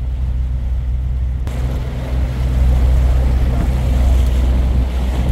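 A boat's engine running steadily with a low drone, under way on the river. About a second and a half in, a rushing noise of wind and water joins it.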